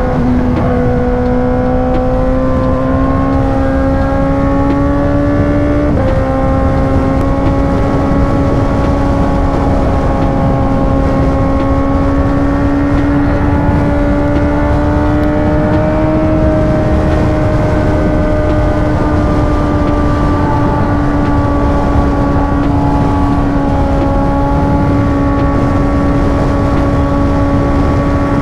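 Yamaha R6's inline-four engine running at a steady high note at highway speed. The pitch climbs slowly, with a brief dip about six seconds in. Heavy wind and road rush run underneath.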